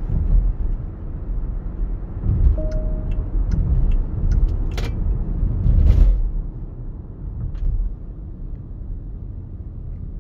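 Road and tyre rumble inside the cabin of a NIO electric SUV while it is driven and slows down. The rumble is louder for the first six seconds and eases as the car slows. A short single-pitched beep sounds about two and a half seconds in, and a couple of sharp clicks follow around five and six seconds in.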